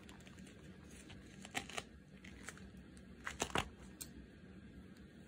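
Plastic and paper packaging crinkling as hands work a lace collar loose from its cardboard backing: soft rustling with a few short crackles, the loudest cluster about three and a half seconds in.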